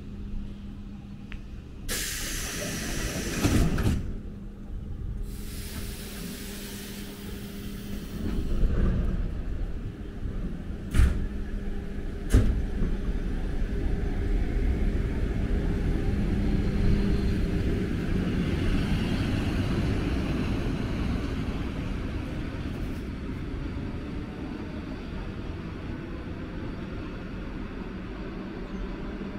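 Electric commuter train at a platform: a steady hum, then loud pneumatic hisses and two sharp knocks. The train then pulls away, its running noise swelling as it passes close and slowly fading as it leaves.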